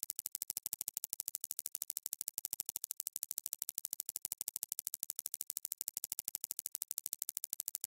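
Synthetic echolocation signal: a rapid, even train of sharp high-pitched clicks, about ten a second, with a faint, slowly shifting echo pattern beneath them from a single swinging tennis ball.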